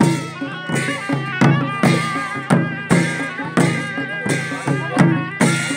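A traditional Nepali wedding band playing: a sanai (shawm) carries a winding, ornamented melody over drum strokes that come about twice a second.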